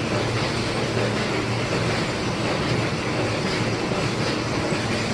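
Corrugated-box production machinery running steadily, with the conveyor line carrying die-cut box blanks: a constant mechanical noise over a low hum, with no distinct knocks or changes.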